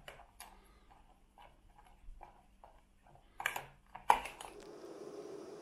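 A spoon stirring dry curry mix, coconut milk powder and water in a stainless steel pot: light scrapes and taps, with two louder clinks of spoon against pot about three and a half and four seconds in. Near the end a steady hiss takes over, the gas canister camping stove burning under the pot.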